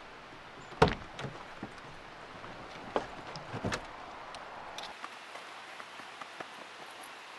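A car door being opened and a man climbing out of the vehicle: a sharp latch click about a second in, another click a couple of seconds later and a low thump, then faint scattered ticks and rustles.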